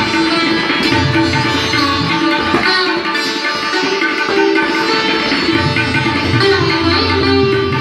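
Sitar playing an Indian classical melody, with plucked notes ringing over its sympathetic strings.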